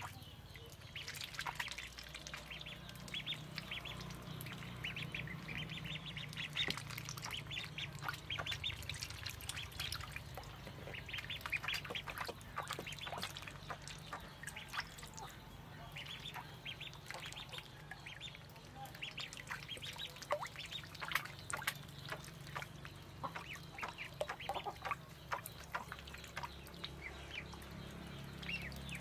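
A group of ducklings peeping continually, many short high chirps overlapping.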